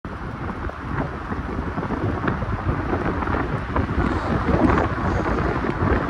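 Wind buffeting the microphone of a moving car, a dense, uneven rumble over the car's road noise.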